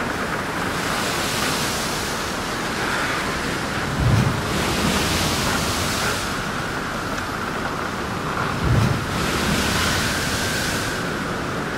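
Sea waves and wind as a steady rushing noise that swells and ebbs every few seconds, with two low thumps about four and a half seconds apart.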